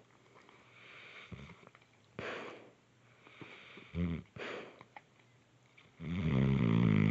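Snoring in sleep: a few soft, breathy snores, a short snore about four seconds in, then a longer, louder snore in the last second.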